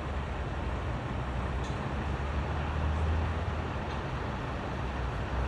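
Steady low rumble of an engine running, with a wash of outdoor traffic-like noise.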